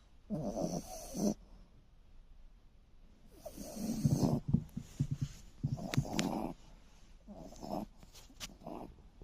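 A sleeping dog snoring: a run of about five uneven snores a second or two apart, the longest and loudest about four seconds in.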